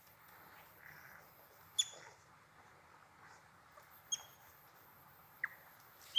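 Unseen small creatures in a river making short, sharp chirping clicks, four of them spaced a second or more apart over a faint steady hiss.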